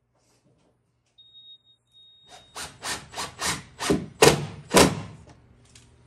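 A run of about eight loud rasping strokes, roughly three a second, starting a little over two seconds in, after a brief faint high whine.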